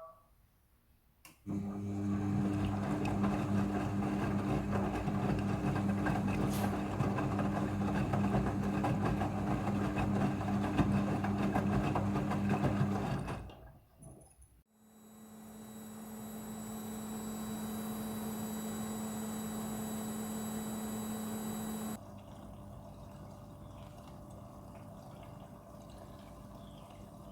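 Front-loading washing machine running: a loud steady motor hum starts about a second and a half in and stops after about twelve seconds. A second hum then builds and holds, and near the end it drops to a quieter steady running sound.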